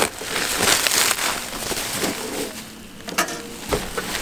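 Plastic sheeting and bubble wrap crinkling and rustling in irregular bursts as it is pulled off a plastic grille, with one sharp tick about three seconds in.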